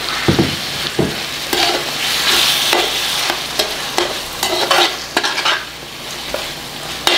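Lamb pieces sizzling in hot oil with onion-tomato masala in an aluminium kadai, just added to the pan, while a metal slotted spoon stirs the mix and repeatedly scrapes and knocks against the pan.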